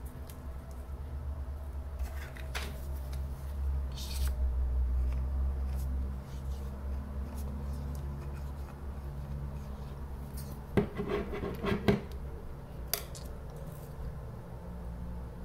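Handling noise of wooden craft slats and a plastic glue bottle on a tabletop: light rubbing and scattered small clicks, with a short cluster of sharp knocks a little past the middle as slats are set down and pressed onto the paper. A steady low hum runs underneath.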